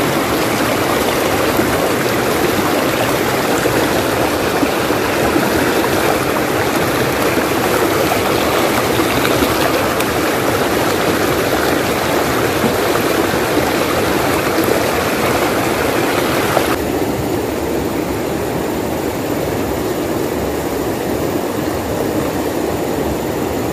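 Shallow mountain stream rushing over rocks: a steady, loud wash of water. About two-thirds of the way through, the sound suddenly turns duller, losing its hiss.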